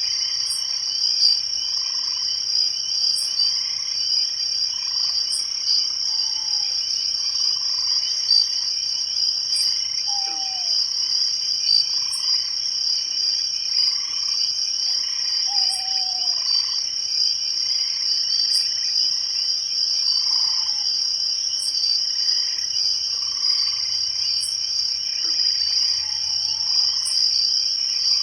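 Night forest ambience: a dense, steady, high-pitched chorus of crickets and other insects, with frogs calling in a slow, regular rhythm beneath it. A few short falling whistled calls break in now and then.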